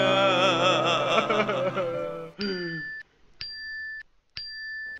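Men's voices wailing in a wavering, sung way over music, stopping about two and a half seconds in. Then three short identical electronic beeps, about one a second.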